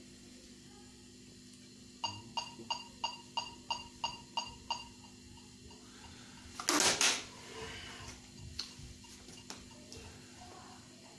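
A metronome app on a phone beeping nine times at an even tempo, about three beats a second, then stopping. A few seconds later comes a short, loud burst of noise, followed by a few faint clicks.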